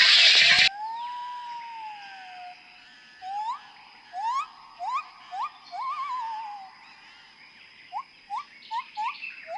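A loud rush of noise cuts off suddenly less than a second in. Then an animal calls: one long wavering whistle, then a string of short whistles that each slide upward, coming faster near the end.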